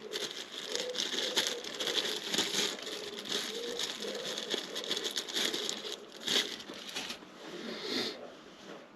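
A bag crinkling and rustling as it is handled, full of small crackles, with a sharper crackle about six and a half seconds in. It quietens near the end.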